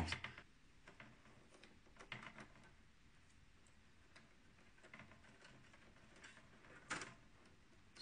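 Mostly near silence, broken by a few faint clicks of SATA data and power cable connectors being handled inside a desktop PC case. The sharpest click comes about seven seconds in.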